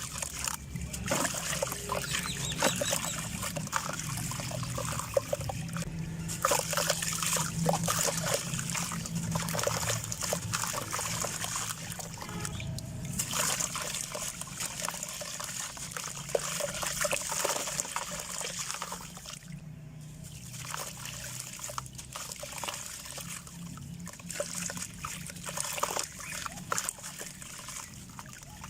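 Small moulded shapes of dry red dirt crumbling and dissolving in water, a continuous crackling fizz with trickles and small splashes.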